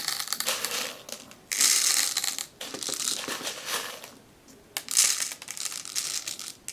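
BBs being funnelled into a small container, a dense rattle of tiny clicks. It comes in several pours of about a second each, with short pauses between them.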